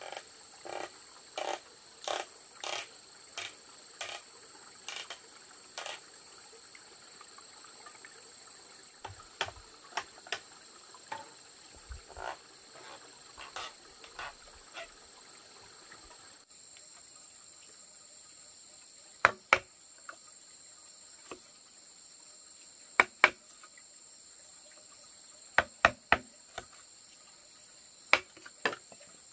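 A knife chopping and notching green bamboo poles in sharp knocks: about two a second at first, then sparser, louder strikes in pairs and threes in the second half. Insects drone steadily at a high pitch behind it.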